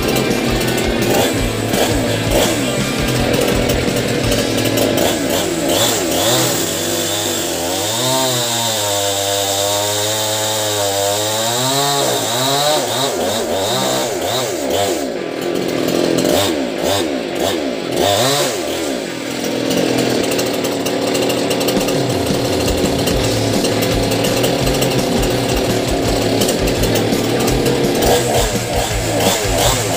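Two-stroke chainsaw engine running, revved up and down several times in the middle, then held at a steady speed for the last ten seconds or so.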